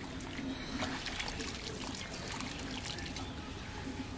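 Water trickling and splashing in small, irregular spurts, as from hands working at the edge of a shallow field ditch.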